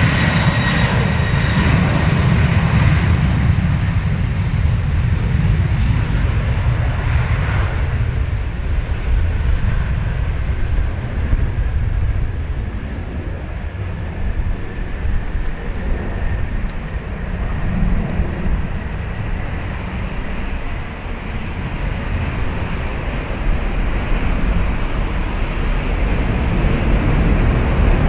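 Boeing 737-800's CFM56-7B24 turbofans at takeoff thrust during the takeoff roll and climb-out. A high fan whine in the first few seconds fades as the jet moves away, leaving a deep, steady rumble.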